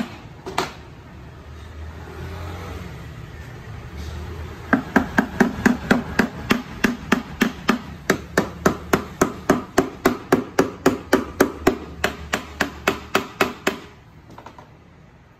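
Plastic-faced mallet knocking on the metal around a KYMCO Cue 125 scooter's rear wheel hub: two blows, a pause of about four seconds, then a fast even run of about four blows a second that stops shortly before the end.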